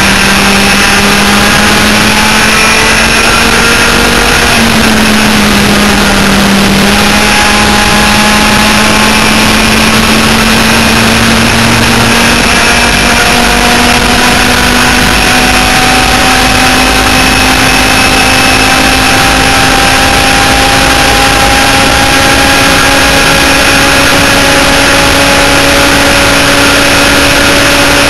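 Twin 100cc two-stroke kart engines with tuned exhaust pipes running flat out on a laydown enduro kart. Their pitch dips slightly about five seconds in, then climbs slowly and steadily as the kart gathers speed, over a constant rush of noise.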